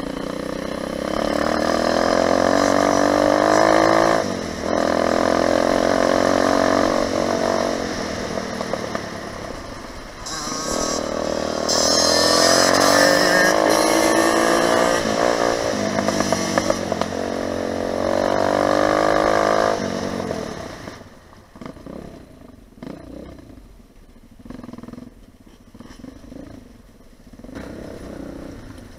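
Lifan 250 four-stroke pit bike engine under hard throttle, its pitch climbing and falling back again and again as the rider goes up through the gears. About twenty seconds in it drops away to a much quieter, uneven sound.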